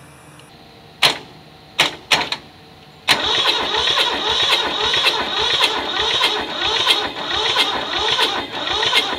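Three sharp clicks, then from about three seconds in a starter motor cranks the Toyosha S88 two-cylinder diesel with a steady whine and a rhythmic chug, without firing. One cylinder has weak compression, the other none, probably from rust on an intake valve, and no diesel is reaching it yet.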